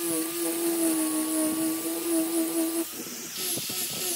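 Handheld angle grinder with a sanding disc running at a steady whine while sanding a curved wooden table leg. About three seconds in the sound breaks off and comes back as a pulsing whine with a rhythmic hiss as the disc works the wood.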